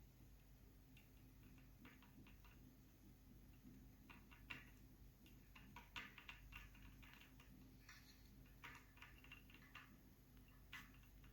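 Faint, irregular small clicks and taps of hand soldering work, as a soldering iron and solder are worked on a wire joint, coming in loose clusters over a low steady hum.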